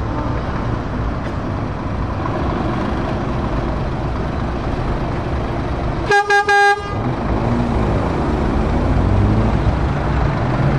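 Scania truck's diesel engine running as the tractor unit drives past. About six seconds in there is a quick run of short truck-horn blasts. After that the engine note wavers and rises as it pulls away.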